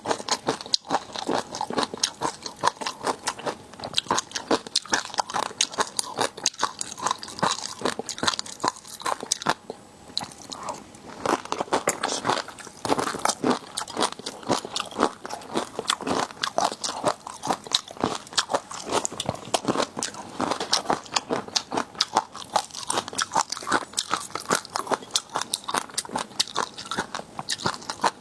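Close-miked eating of seafood: rapid, continuous crunching and chewing, with a brief lull about ten seconds in.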